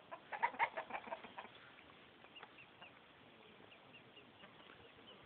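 A hen clucking in a quick run of sharp calls during the first second and a half, followed by faint short high chirps repeating every half second or so.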